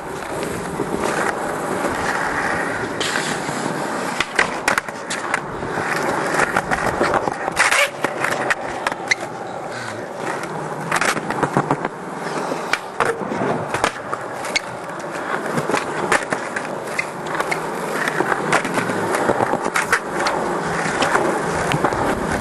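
Skateboard wheels rolling on smooth concrete, with repeated sharp clacks of the board's tail popping and the board landing during flatground tricks.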